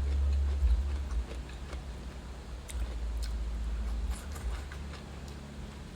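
Someone eating: scattered soft clicks and chewing over a steady low rumble.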